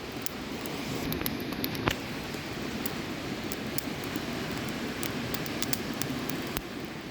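Fire crackling: sharp, irregular pops over a steady rushing hiss, with one louder pop about two seconds in.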